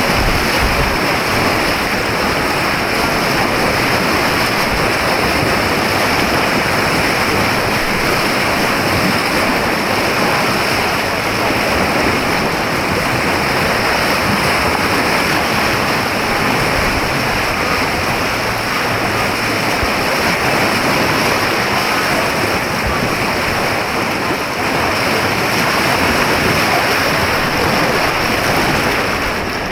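Steady rush of churning white water on an artificial white-water course.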